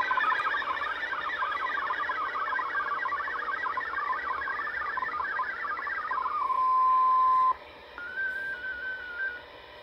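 VOA Radiogram MFSK32 digital data signal on shortwave, heard through the receiver as a rapid warble of many short tones. About six seconds in it gives way to a steady single tone for about a second. Then it drops to faint static hiss, with a brief faint stepping tone near the end.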